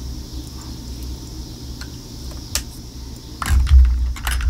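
Lipstick tubes being handled: a light click about two and a half seconds in, then louder bumps and clicks near the end, over a steady low hum.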